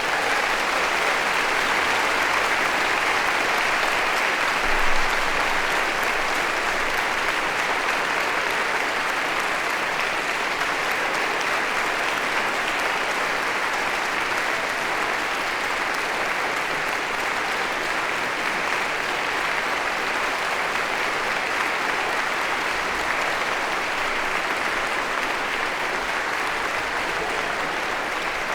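Crowd applause: many people clapping together in a dense, steady wash of claps, with a brief louder swell about five seconds in.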